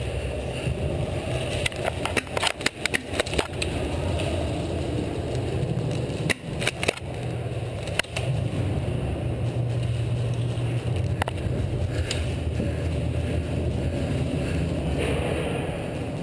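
Airsoft guns firing in short bursts of sharp snaps, several clusters of rapid clicks, over a steady low rumble.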